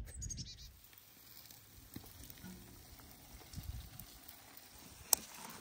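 Faint, steady sizzling of a catfish fillet and meat cooking on a grill. A brief high bird chirp comes at the start, and a single sharp click near the end.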